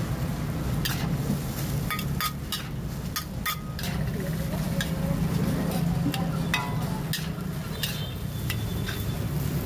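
A large batch of fried rice being stir-fried in a wok: a metal spatula scrapes and clanks against the pan again and again, over a steady low hum and the sizzle of frying.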